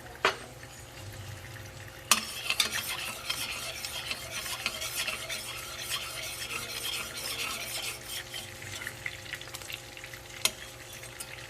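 A spoon stirring and scraping through a pan of simmering gravy as the added cornstarch thickens it. A few sharp clicks come at the start, about two seconds in and near the end.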